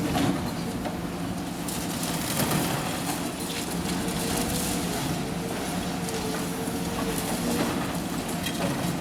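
Demolition excavator's diesel engine running steadily with a wavering hum while it crunches and breaks up rubble and timber, with a few sharper cracks.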